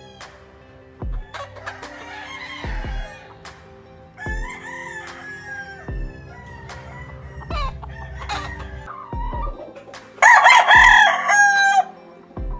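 Gamefowl roosters clucking and calling, with one long loud rooster crow about ten seconds in. Background music with a steady beat runs under it.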